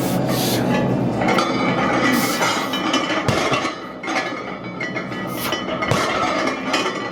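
Metal barbell plates clinking and knocking during a heavy deadlift set, with several sharp knocks as the bar moves.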